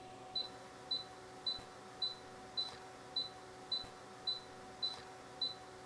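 MAXXAIR MSX 3030 A/C refrigerant recovery machine beeping steadily, short high beeps a little over half a second apart, over a faint steady hum. It is the machine's alert after the oil drain, prompting for the amount of recovered oil.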